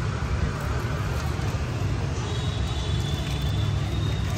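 Steady low rumble of street background noise, like passing traffic.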